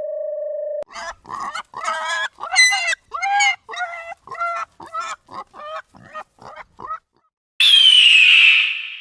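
A steady electronic tone cuts off about a second in, followed by a waterfowl calling in a long series of about a dozen honking quacks that grow shorter and softer. Near the end comes a single harsh, falling caw.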